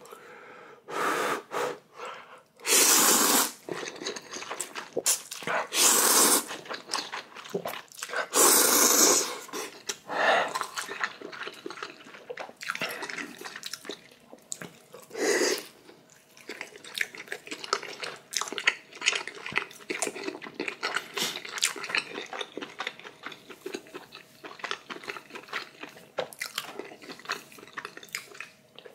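Close-up eating of spicy instant ramen: several loud, hissing slurps of noodles in the first half, then steady wet chewing with many small clicks.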